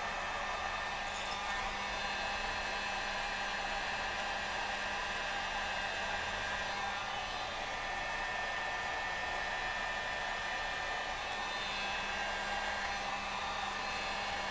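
Electric heat gun running steadily, its fan blowing hot air with a low hum, heating the brittle plastic tabs of a transmission wiring-harness connector to soften them.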